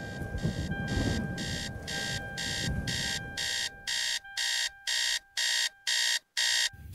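Electronic music build-up: a sustained high tone under evenly spaced, chopped bursts of hiss, about two a second. The low end drops away about halfway through, leaving the bursts separated by silence just before the beat comes in.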